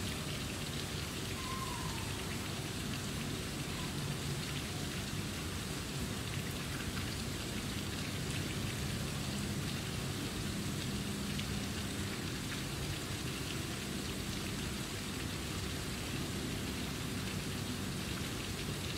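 Steady, even outdoor hiss with a faint low hum under it. A short falling whistle-like call comes about a second and a half in.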